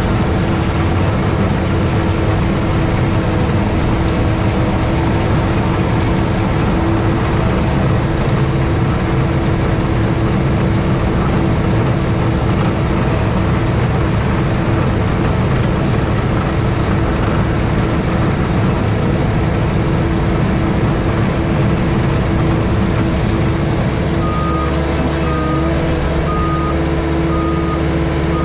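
A JCB Pothole Pro's diesel engine and hydraulics running steadily under load while its road planer works the surface. About 24 seconds in, the engine note changes and a reversing alarm starts beeping about once a second.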